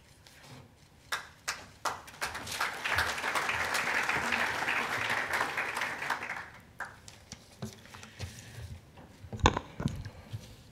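Audience applause: a few scattered claps, then a full burst of clapping for about four seconds that dies away. Near the end, a few sharp thumps from the lectern microphone being handled.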